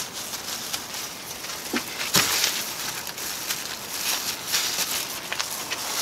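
Wide paintbrush and gloved hands working epoxy-wet fibreglass cloth: irregular scratchy, rustling strokes and dabs, the loudest about two seconds in.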